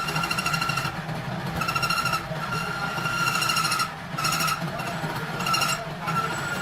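A machine running with a steady low hum, while a high, even-pitched whine cuts in and out every second or so.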